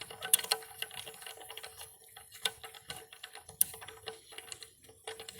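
Irregular small plastic clicks and ticks as the flush handle's mounting nut is unscrewed by hand from the handle's threads inside the toilet tank, with a couple of sharper clicks.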